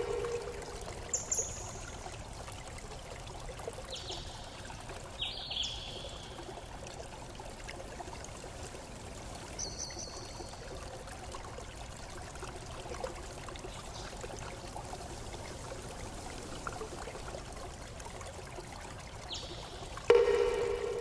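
A stream trickling steadily, with a few short, high bird chirps scattered through. Near the end a louder, lower ringing note with overtones sounds once and fades.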